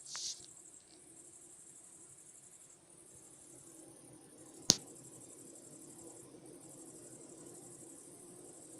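Crickets chirping steadily in a high, fast-pulsing chorus over the faint low hum of a night apiary, with bees fanning at the hives during a nectar flow. One sharp click comes about halfway through.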